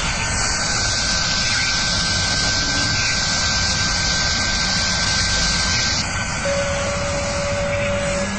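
Glass-engraving CNC router running: a steady hiss with a thin constant whine over it. The upper part of the hiss falls away about six seconds in, and a lower steady tone sounds briefly near the end.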